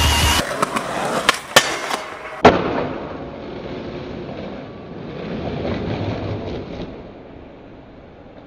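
Background music cuts off about half a second in. Then a skateboard clacks sharply on concrete a few times, the loudest hit about two and a half seconds in, followed by the low rumble of wheels rolling, which swells and fades.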